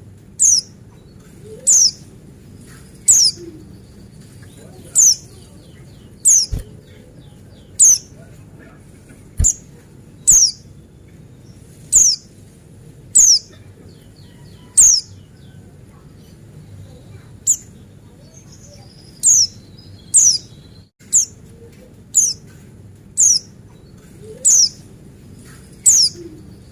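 Pleci buxtoni white-eye repeating a short, sharp, high call that drops in pitch, about once a second, with a pause of a few seconds past the middle. A low steady hum lies underneath.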